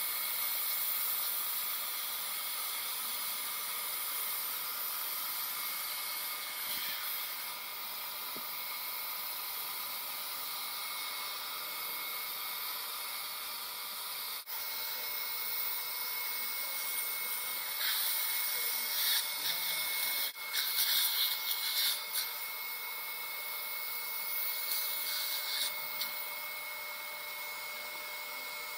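Dental suction hissing steadily with a faint steady tone, with louder bursts of high hiss about two-thirds of the way through and again near the end.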